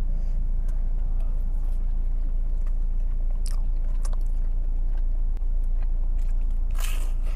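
Mouth sounds of eating and chewing, with a crisp bite into a soup-soaked fried wonton skin near the end. Under it runs a steady low hum in the car cabin.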